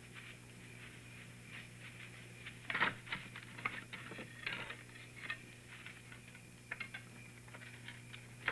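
Light, irregular taps and knocks at a house's window, loudest about three seconds in, over a faint steady high tone.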